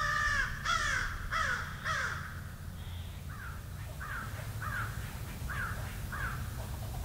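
Crows cawing: four loud caws in quick succession, then a run of five fainter caws about two-thirds of a second apart.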